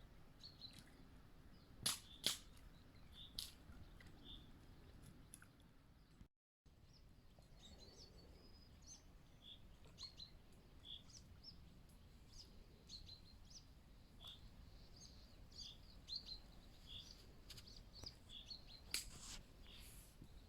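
Faint small birds calling, short high chirps repeated again and again, over quiet outdoor background. Two sharp loud clicks come about two seconds in and another near the end; the sound drops out briefly about six seconds in.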